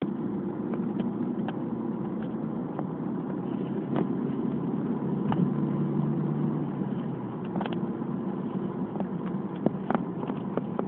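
Steady low drone of a car travelling on an expressway, engine and tyre noise heard from inside the cabin, with a few light clicks scattered through it.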